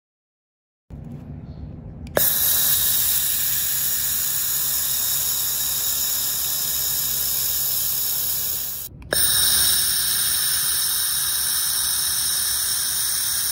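1500 W handheld fiber laser welder firing on thin stainless steel sheet: a steady loud hiss of the weld and shielding gas that starts suddenly about two seconds in, breaks off for a moment about nine seconds in, then resumes.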